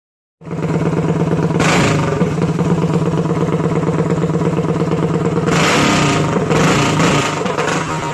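Go-kart engine with loud exhaust pipes running at a steady pitch, cutting in abruptly just after the start, with two short swells of harsher noise about one and a half and five and a half seconds in and a wavering pitch near the end.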